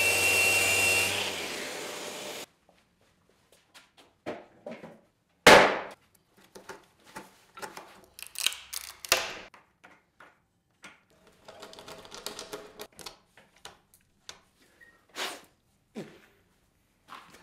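A steady noise with a high whine for the first two seconds or so, cut off abruptly, then scattered knocks, clicks and taps of hand work at a woodworking bench, with one sharp knock about five and a half seconds in.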